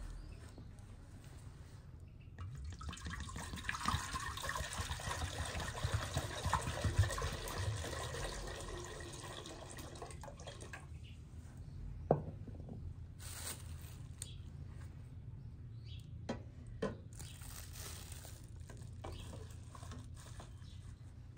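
Water running for about eight seconds, starting a couple of seconds in and stopping suddenly, followed by a few scattered sharp knocks.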